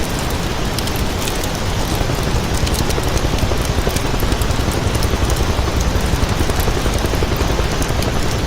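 Construction vehicle engine running steadily at work: a loud, even noise with fine crackling throughout.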